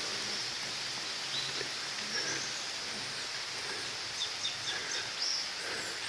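A steady outdoor hiss with a bird chirping a few times, short high calls about four to five seconds in.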